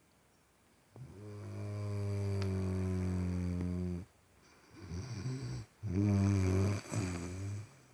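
A sleeping person snoring. One long, steady snore starts about a second in, and after a short pause comes a louder snore whose pitch wavers.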